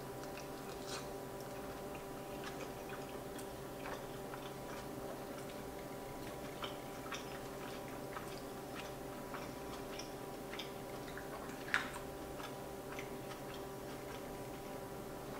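Close-up eating sounds of a mouthful of farfalloni mac and cheese being chewed: soft, irregular little wet clicks and smacks from the mouth, with one sharper click near the end, over a faint steady hum.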